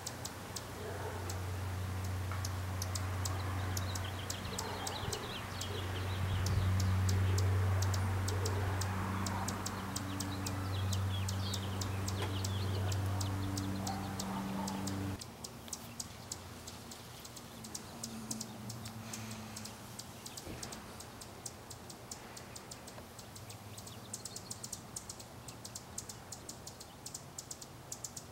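Outdoor ambience with a run of short high ticks throughout and faint bird chirps. A steady low hum fills the first half and cuts off suddenly about fifteen seconds in.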